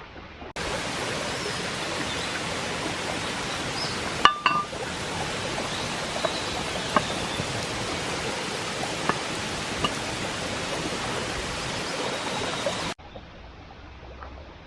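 Campfire cooking with a Dutch oven: a steady sizzling hiss with scattered crackling pops, and a metallic clink about four seconds in. The hiss starts and stops abruptly.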